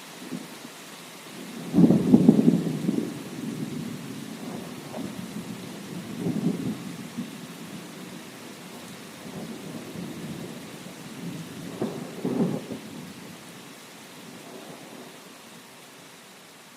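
Thunder rolling over steady rain: a loud rumble breaks in about two seconds in, rolls on in swelling waves, and fades away near the end, with the rain hissing throughout.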